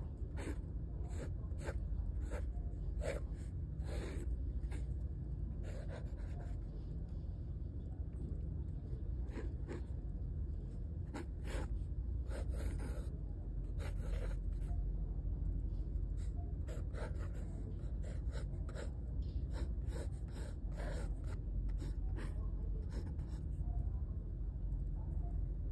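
Pencil sketching on paper: irregular scratchy strokes, mostly short and quick with some longer ones, over a steady low hum.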